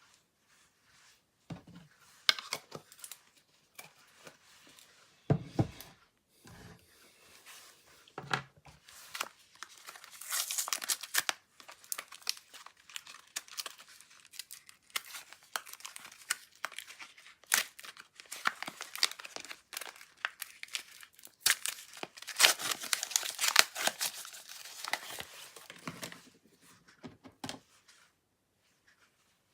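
Slime being squished, stretched and mixed by hand, giving crackling, crinkling and popping sounds with sharp clicks, densest in two louder stretches.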